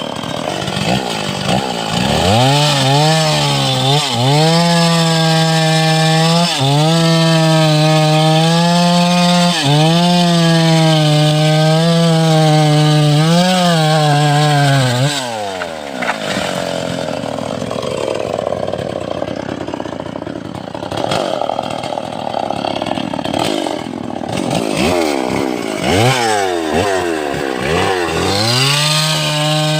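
Chainsaw cutting teak wood: the engine is held at high speed with brief dips for several seconds, falls away about halfway through into a rougher, lower running, and climbs back up near the end.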